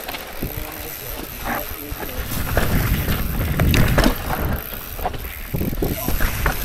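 Mountain bike descending a rough, rocky dirt trail: tyres rumbling and crunching over rock and ground, with the frame and parts rattling and repeated knocks from impacts. The rumble grows loudest in the middle and again near the end as the terrain gets rougher.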